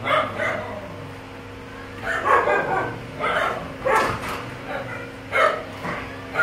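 Dog barking in short, separate barks with brief gaps between them.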